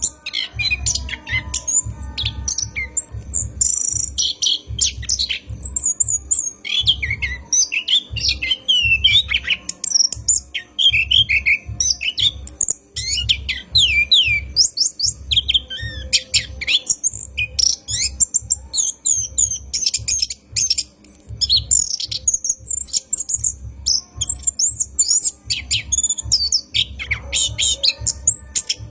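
Orange-headed thrush (anis kembang) singing a long, continuous song of fast, varied high chirps, trills and whistles, with a steady low thumping underneath.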